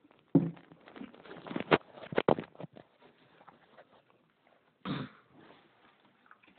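Handling noise from unboxing a JL Audio subwoofer: scattered knocks, clicks and rustles of the speaker and its packaging, with a quick run of sharp clicks about two seconds in and two short louder bursts, one near the start and one about five seconds in.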